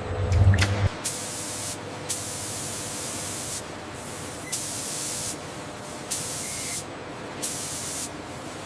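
Hissing spray in five short blasts, each about a second long with a sharp start. A low machine hum cuts off as the first blast begins, about a second in.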